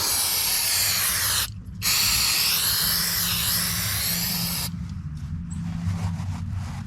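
Aerosol spray can hissing in two long bursts with a short break about a second and a half in, then a few light clicks and handling noises.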